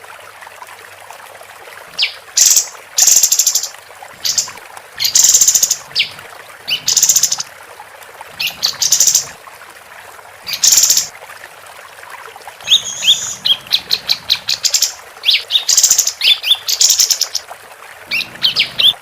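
Female pied triller (kapas tembak) calling. Loud, harsh, scratchy bursts start about two seconds in, mixed with quick sharp notes, and a rapid run of short notes follows in the second half, over a steady background hiss.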